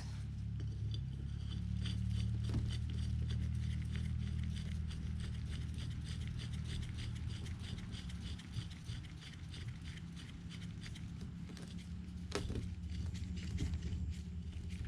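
Ratchet wrench clicking quickly and lightly as a lug nut is run down a wheel stud, with a couple of dull knocks and a steady low hum underneath.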